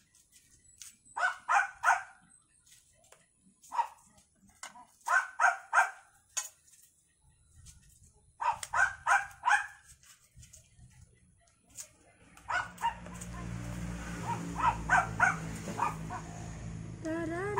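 A dog barking in quick runs of three or four barks, repeated several times with pauses between. About twelve seconds in, a low steady hum sets in under the barking.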